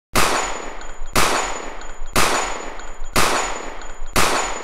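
Gunshot sound effects, one about every second, five in all, each a sharp crack dying away with a thin high ring after it.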